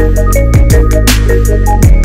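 Background music: an electronic track with a steady drum beat, sliding bass notes and short synth tones.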